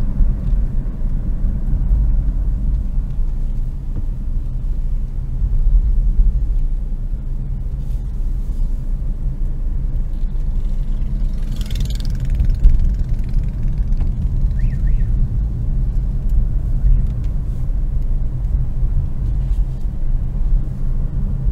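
Car driving on a road, heard from inside the car: a steady low engine and road rumble. About twelve seconds in, a brief rushing hiss sounds as something passes, and two short high chirps follow a few seconds later.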